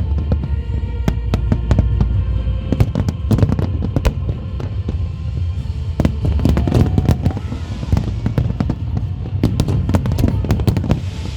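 Fireworks bursting in rapid, dense succession: many sharp bangs and cracks following one another, with show music playing underneath.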